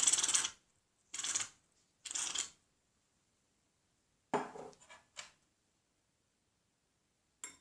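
Aerosol can of shaving foam spraying: a long hiss that stops about half a second in, then two short squirts a second apart. A single knock follows a couple of seconds later, with a few light clicks near the end.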